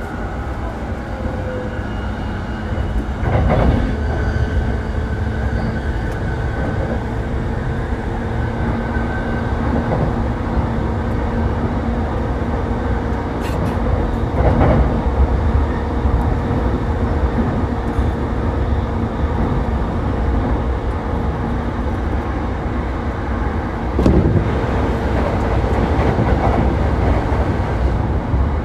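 JR E233-7000 series electric train under way, heard aboard its motor car MoHa E233-7401: a steady rumble of wheels on rail under a level hum from the traction motors. Three louder knocks stand out, about three seconds in, near the middle and near the end.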